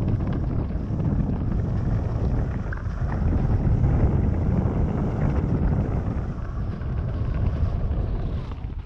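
Wind buffeting the microphone of a mountain bike riding along a forest trail, over a steady low rumble of the tyres rolling on the dirt, loudest about four seconds in.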